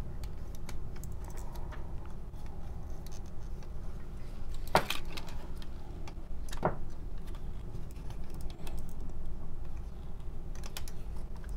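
Plastic parts of a transforming robot figure being handled and worked to fold and clip together: scattered small clicks and rattles, with two sharper clacks about five and seven seconds in. A low steady hum runs underneath.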